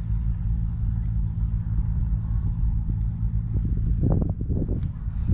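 Engine running with a steady low drone, its even humming tones unchanging throughout; a few brief louder sounds come about four seconds in.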